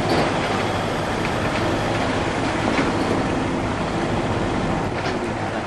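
Steady rumble and rattle of a vehicle driving over rough farm ground, heard from inside.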